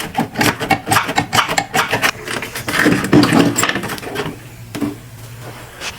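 A run of quick clicks and knocks from hand tools and parts being handled during work on the car, easing off near the end.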